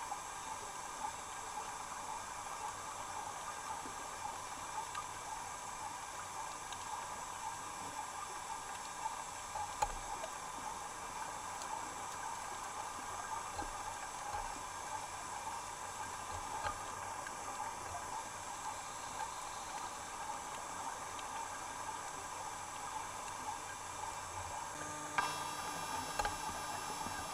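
Steady underwater background hiss with faint crackling and a few small clicks. The sound changes character about 25 seconds in.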